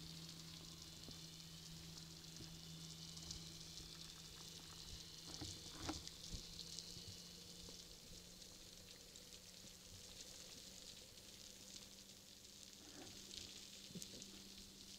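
Faint underwater crackling and fizzing heard through a camera housing, over a steady low hum, with a brief cluster of knocks about six seconds in.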